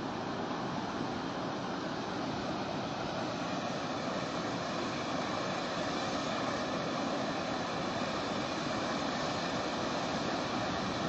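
Floodwater rushing past in a steady, even wash of noise that grows slightly louder toward the end.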